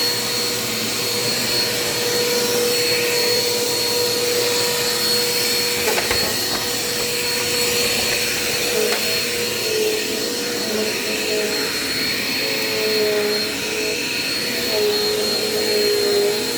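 Dirt Devil Quick Power bagless upright vacuum cleaner running as it is pushed over a hard kitchen floor: a steady motor whine over the rush of air. There is a single click about six seconds in, and the whine wavers in pitch in the second half.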